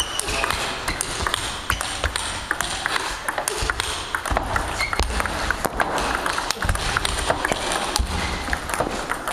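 Table tennis rally: the ball clicks quickly and repeatedly off the bats and the table.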